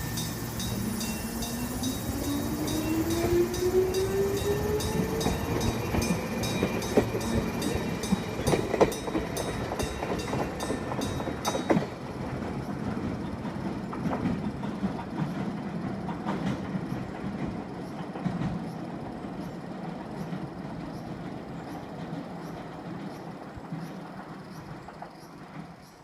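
Level-crossing electric bell ringing a rapid, even ding-ding-ding while an electric train pulls through. The train's motor whine rises in pitch over the first several seconds, and its wheels knock over the rail joints. The train noise then fades while the bell keeps ringing.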